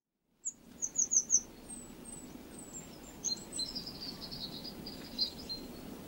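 Birds chirping and twittering, starting about half a second in: a quick run of short, high, falling notes around a second in, then a thinner, lower twitter, over a steady low background noise.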